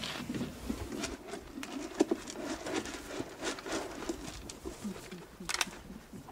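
A horse chewing feed from a hand-held plastic feeder: a run of irregular soft clicks, with a sharper pair about five and a half seconds in.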